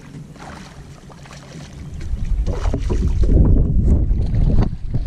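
Wind buffeting the microphone in a low rumble that grows much louder about two seconds in, with a couple of short splashes from a hooked largemouth bass thrashing at the side of the boat.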